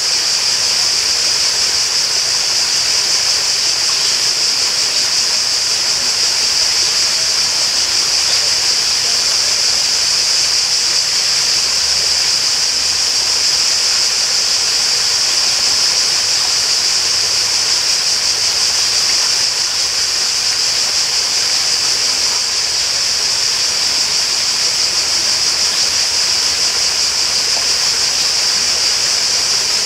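Water flowing steadily, an even rushing sound with a constant high-pitched hiss on top that does not change.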